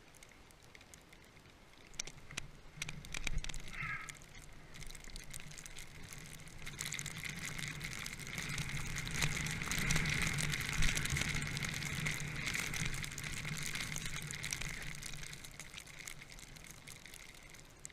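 Rushing noise of skiing or riding down through deep powder snow, with wind on the microphone. It builds to its loudest in the middle and eases off near the end, with a few scattered knocks early on.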